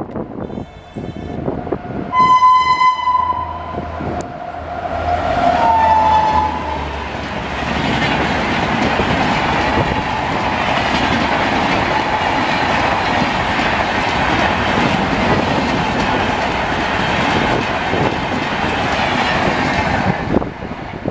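An express passenger train's locomotive horn blasts twice, a short blast then a louder one. The train then rushes past at about 110 km/h, its passing coaches rattling loudly and steadily for around thirteen seconds before the noise cuts off.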